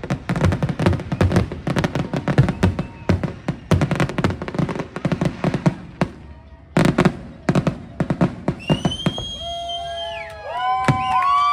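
Fireworks show: rapid bursts and crackles of aerial fireworks following one another densely. Near the end they give way to several sustained pitched tones that hold, then bend down.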